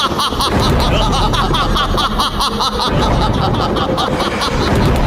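A man's loud, rapidly repeated laughter, a stage demon-king's villain laugh, played over a loudspeaker system with music behind it.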